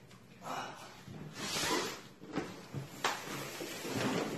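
Irregular rustling and movement noises, with one sharp click about three seconds in.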